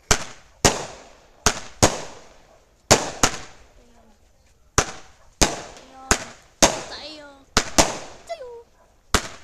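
A 16-shot Martin Bomb consumer firework cake firing: a string of sharp bangs, many in close pairs, coming every half second to a second, each with a trailing echo.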